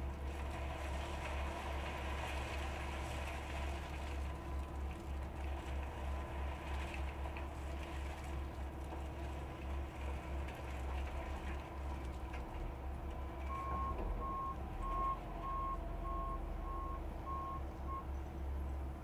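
Volvo wheel loader's diesel engine running steadily as a low rumble, with a reversing alarm beeping about eight times at an even pace, roughly two beeps a second, in the last third.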